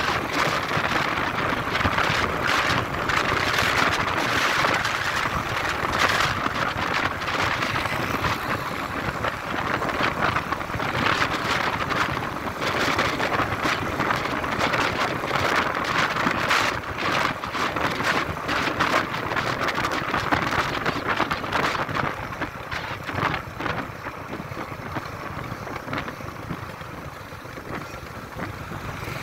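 Wind buffeting the microphone on a moving motorcycle, over the motorcycle's engine and road noise, in uneven gusts. It grows quieter over the last several seconds.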